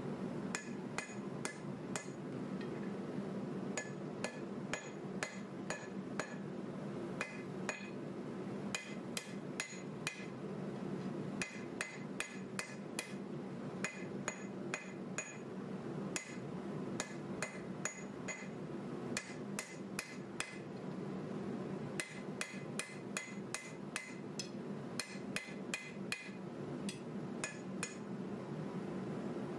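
Hand hammer striking a red-hot bar of 1095 high-carbon steel on an anvil, forging a knife blade. The blows come about three a second in runs with short pauses, each with a brief metallic ring, over a steady low hum.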